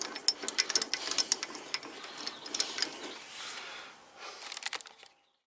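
Irregular clicks and knocks as the freshly turned bottle jig is handled and fitted, ending abruptly in silence about five seconds in.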